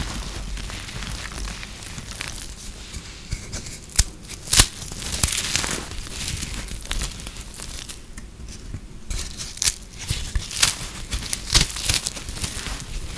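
Hands breaking and crumbling microwaved soap, its puffed brittle foam crunching and crackling in irregular bursts. Two sharp snaps come about four seconds in, half a second apart.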